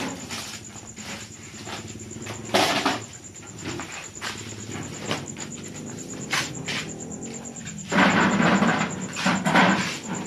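Empty plastic gallon water jugs knocking and clattering as they are handled and stacked into a pickup truck's bed, with scattered knocks at first and a louder stretch of clatter near the end.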